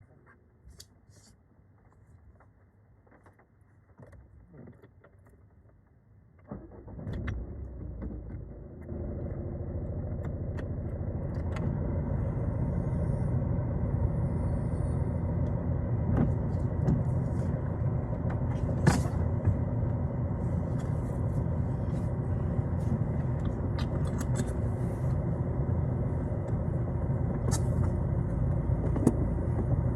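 Small clicks and a jangle of keys, then about six and a half seconds in a Citroën Xsara diesel engine starts and settles into a steady run.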